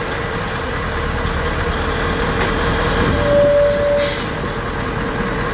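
Scania 580 V8 heavy-haul tractor engine running steadily under load as the truck pulls slowly forward. A short burst of air hiss comes about four seconds in, just after a single steady tone lasting about a second.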